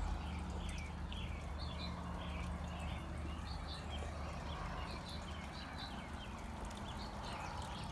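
Small birds chirping again and again over a steady low hum.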